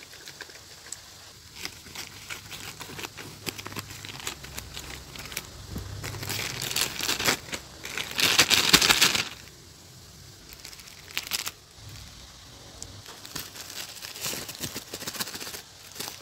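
Thin plastic courier mailer bag crinkling and crackling as it is handled and torn open by hand, loudest in a burst about eight seconds in. Near the end, clear plastic wrapping around the toys rustles.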